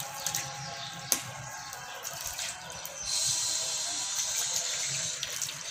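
Water running from a garden hose and splashing. About three seconds in it turns into a louder, steady hiss of spray.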